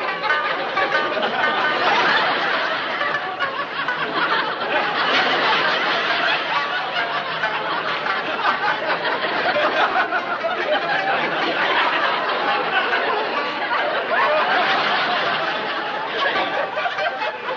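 Audience laughter, long and unbroken, swelling and easing in waves.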